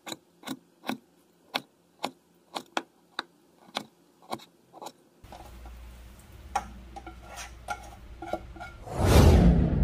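A cleaver chopping raw pork belly on a wooden cutting board, about two sharp chops a second for the first five seconds. Then a low steady rumble with a spatula scraping and clinking against a bowl and pan, and from about nine seconds in a loud sizzle as the food goes into the hot frying pan.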